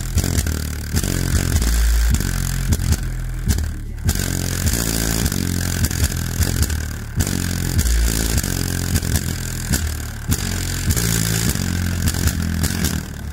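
A sheet of paper held on a subwoofer buzzing and rattling hard as the speaker pumps out the deep, stepping bass line of a rap track, with brief breaks about four and seven seconds in.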